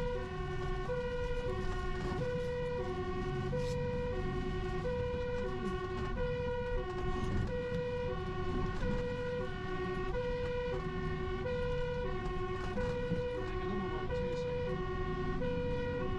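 Fire engine's two-tone siren alternating steadily between a low and a high note, each held a little over half a second, heard from inside the cab over a low engine and road rumble.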